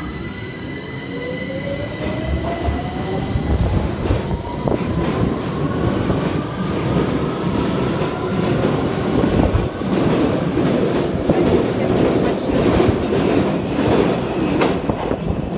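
London Underground Victoria Line 2009 Stock train pulling out of the platform: the whine of its traction motors rises steadily in pitch as it picks up speed, over loud wheel rumble and rattling on the rails.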